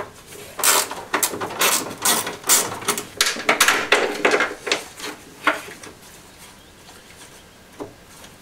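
Hard plastic and metal clicks, knocks and scrapes from hands working a car's square headlight unit loose from its mounting after its three screws are out. The clatter is busy for about five seconds, then goes quiet apart from one click near the end.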